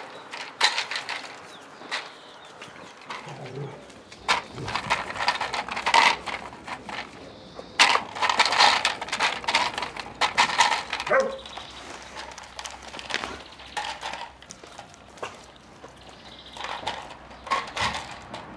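Dobermann puppies playing with empty plastic bottles hung on strings: the bottles clatter and crackle in bursts as the pups bite and tug at them against the wire gate, and now and then a puppy yaps.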